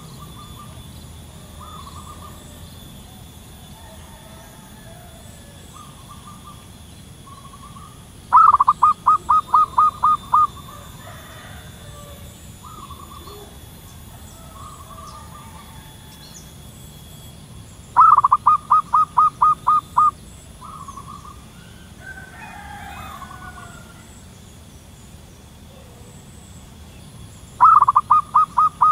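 Wild zebra dove cooing: three loud runs of rapid staccato notes, about ten notes each, roughly ten seconds apart, the last one near the end. Fainter short coos come in between.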